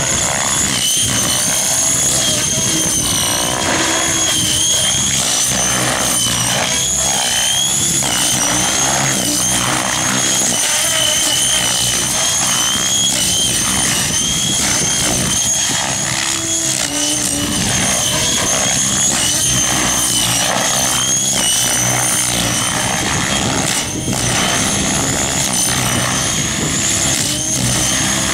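Avant Aurora 90 electric RC helicopter flying hard aerobatics, its electric drivetrain giving a high whine that wavers up and down in pitch as the power changes.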